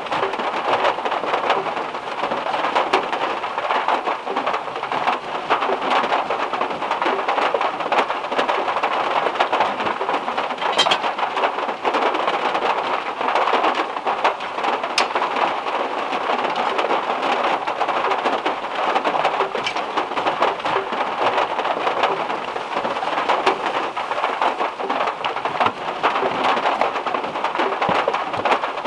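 Heavy rain falling on the metal roof of a VW Beetle, heard from inside the car: a steady, dense patter of drops.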